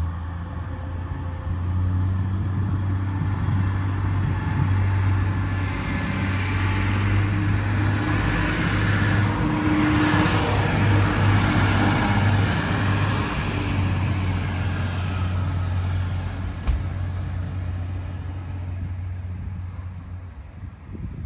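Passenger train passing close by: a steady low engine hum under the rush of the passing cars, which swells to its loudest about halfway through and fades away near the end. A single sharp click about three-quarters of the way through.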